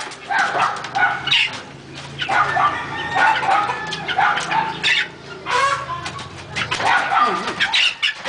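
Caged gamecocks clucking and calling in short repeated bursts, with scattered sharp knocks and clicks among them.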